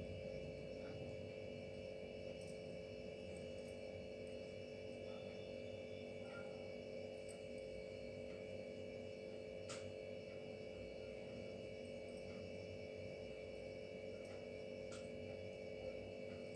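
A steady electrical hum with several fixed tones, with a couple of faint ticks about ten and fifteen seconds in.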